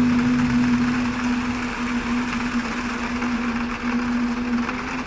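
Concrete mixer truck's engine running at a steady speed, with a steady hum, while the drum turns to discharge concrete down the chute.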